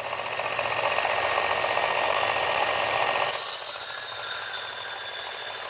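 Work Sharp electric belt knife sharpener running with a coarse abrasive belt, its motor and belt making a steady whirring noise that builds over the first second. About three seconds in, the steel blade is drawn across the moving belt, giving a loud, high hissing grind for about a second and a half before it lifts off.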